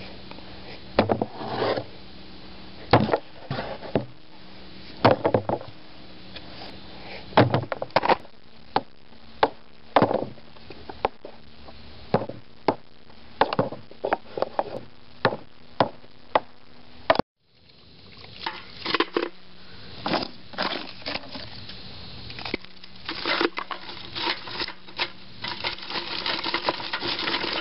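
White pine being split into small sticks with a hand-held blade on a wooden board, with sharp, irregular wooden knocks about once a second. After a brief break about two-thirds of the way in, pine sticks clatter as they are packed into a metal paint can, the clattering growing denser near the end.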